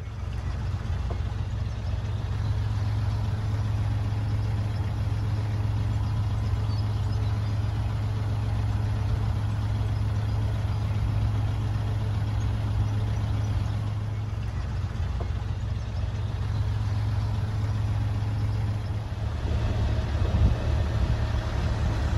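Narrowboat's diesel engine running steadily under way, a deep even drone.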